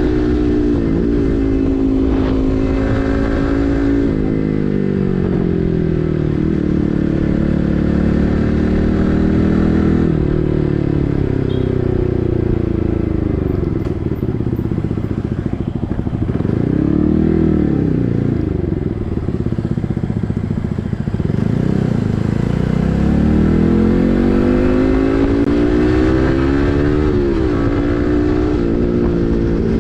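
Yamaha MT-15's 155 cc single-cylinder engine running through an SC Project full-system exhaust while riding. The revs climb and fall repeatedly, with sudden drops in pitch at gear changes (one about four seconds in, another near the end) and slow rises and falls as the throttle is opened and closed.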